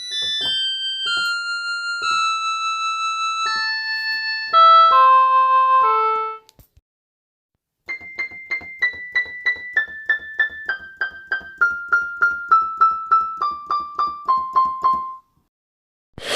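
Two short electric-piano jingles. The first is a quick phrase of held notes; after a pause of about a second, the second is a slow run of short struck notes, each pitch repeated a few times, stepping steadily down the scale.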